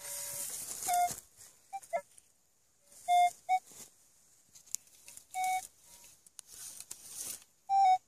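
Metal detector beeping in short, irregular tones as it passes over a buried metal target, with a few rustles of soil and leaves in between. The repeated beeps signal that metal is still in the hole.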